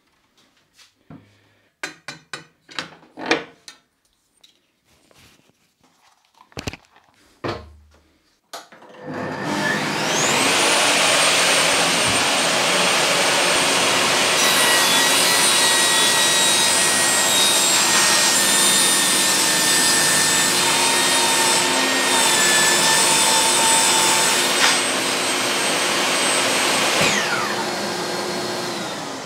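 Knocks and clacks as a multiplex plywood panel is handled on the saw table. About eight seconds in, a table saw's motor starts with a rising whine and its blade cuts through the plywood for about eighteen seconds. Near the end the saw is switched off and its whine falls as the blade spins down.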